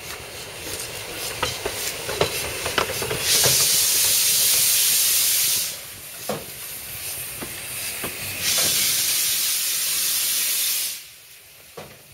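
La Meuse narrow-gauge steam tank locomotive moving slowly. Steam hisses out in two long loud bursts, from about three to nearly six seconds in and from about eight and a half to eleven seconds in. Between the bursts there are sharp clanks and knocks from the running gear and wheels.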